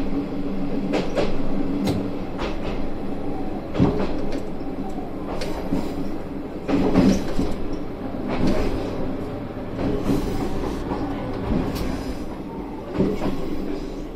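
Isumi 350 series diesel railcar running along the track, heard from inside the car: a steady engine drone with the wheels knocking over rail joints every second or two.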